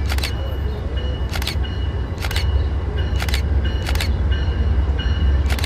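Railway warning bell clanging about once a second, with a high ringing tone between the strikes, over a low steady rumble as a passenger train approaches the station.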